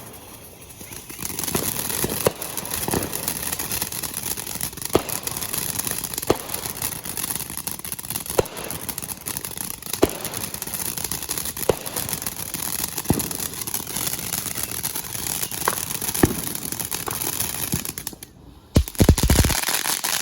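Consumer fireworks crackling continuously, with sharper pops every second or two. Near the end the crackle drops out briefly and a loud low rumble comes through.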